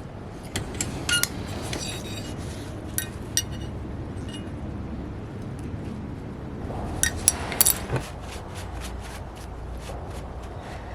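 Light metallic clinks of small metal pieces knocking together, each with a brief ring: a few about a second in, two more at about three seconds, and the loudest cluster about seven seconds in.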